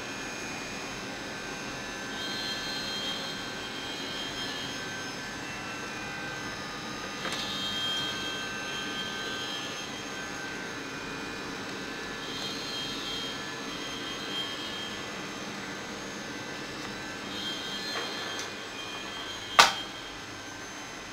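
CNC milling machine running with a steady mechanical hum and whine of several tones, a higher part swelling and fading about every five seconds, and one sharp click near the end.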